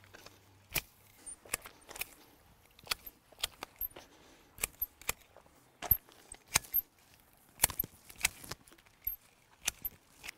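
Long-handled hedge shears cutting into mugo pine candles and branches: an irregular series of sharp snips as the blades close, often two in quick succession.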